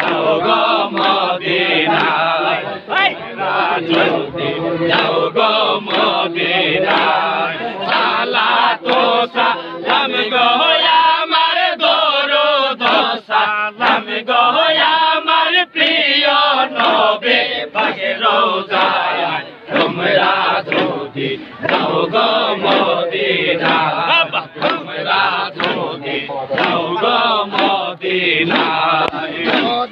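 A crowd of men chanting a Sufi zikr together, loud and rhythmic, many voices in unison.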